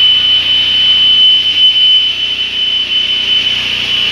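CNC marble cutting machine running with a steady high-pitched whine.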